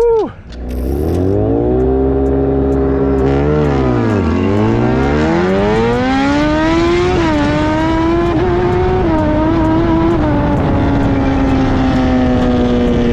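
Motorcycle engine at speed with wind rush: the revs drop low about four seconds in, then climb steadily as it accelerates hard, then hold a high steady note that slowly sinks as it eases off. A brief swooping tone sounds at the very start.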